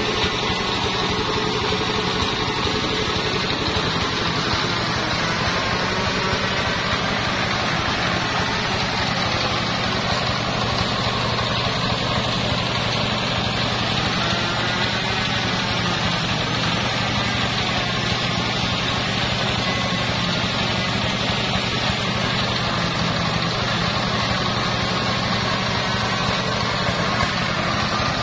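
Single-cylinder diesel engine powering a homemade circular-saw sawmill, running steadily at idle with no cut being made.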